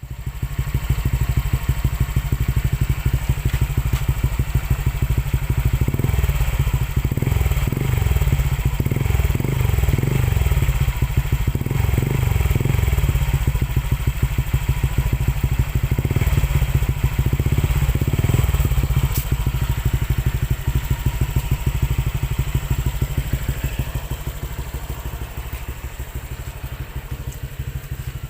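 Honda Click 125i scooter's single-cylinder engine running through a newly fitted Exos X6 aftermarket exhaust: idling, with the throttle blipped repeatedly through the middle, then settling back to a steady idle that eases off a little near the end.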